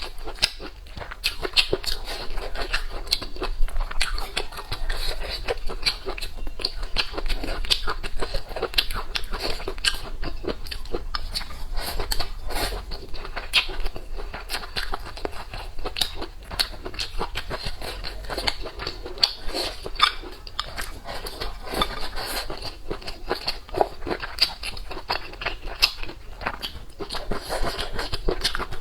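A person eating close to the microphone: steady wet chewing with frequent sharp clicks and crunches of biting.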